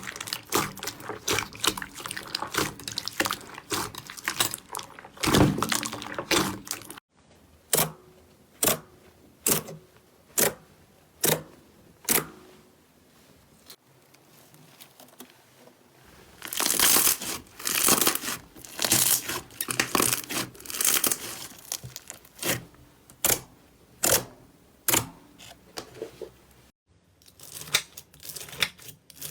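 Slime being handled: crinkly, tearing crackles at first, then a row of single sharp pops about once a second, then denser clusters of crackling. Sudden breaks between these stretches mark separate clips cut together.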